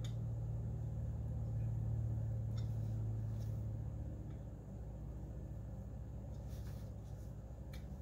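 Steady low hum with a few faint light clicks scattered through it.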